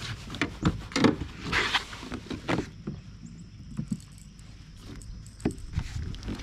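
Handling noise inside a plastic sit-on-top fishing kayak: irregular knocks, clicks and scrapes as fishing gear and the seat frame are moved, with a longer rustling scrape about a second and a half in.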